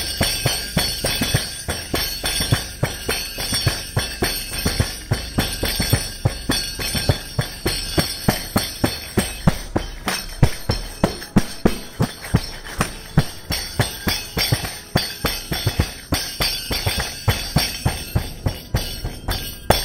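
Handmade frame-drum tambourine with bronze jingles, struck by hand in a quick, steady rhythm, each stroke setting the jingles ringing.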